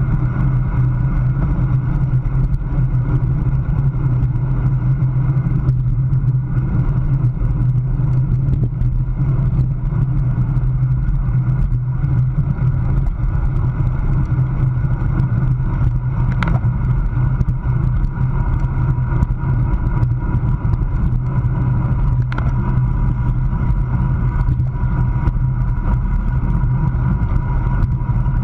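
Wind rushing over the microphone of a bicycle-mounted camera at racing speed, with tyre and road rumble: a loud, steady low roar. Two brief clicks are heard about halfway through and later on, and a faint steady whine joins about two-thirds of the way in.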